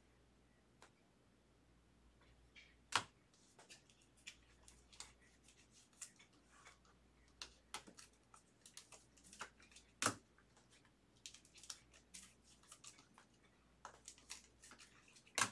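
Quiet clicks, taps and rustles of trading cards being slid into soft plastic sleeves and a rigid clear plastic top-loader, with sharper clicks about three seconds in, about ten seconds in and at the very end.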